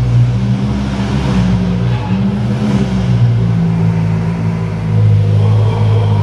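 Ferrari 488 Pista's twin-turbo V8 running through a Novitec aftermarket exhaust, its low engine note shifting up and down in pitch several times.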